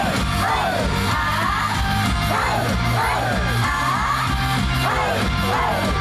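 Live J-pop idol song played over a hall PA: a backing track with a bass line and high voices singing or calling in sweeping pitch glides over it.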